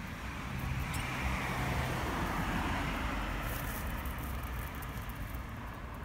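Steady outdoor street noise: a low traffic rumble, with a faint hum early on.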